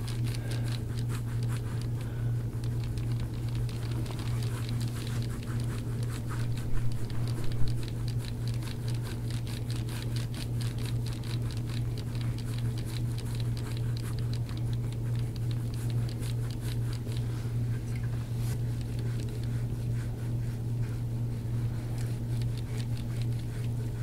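Gua sha scraping tool worked in quick strokes over oiled skin on a back, giving a dense run of soft scrapes and clicks, with a couple of louder clicks about seven seconds in. A steady low hum runs underneath.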